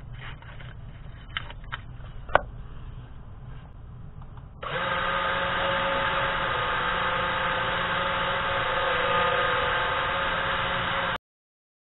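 A few small handling clicks and one sharp click, then about halfway through a 3018 CNC router's spindle motor starts and runs at a steady speed with a high whine. It stops abruptly near the end.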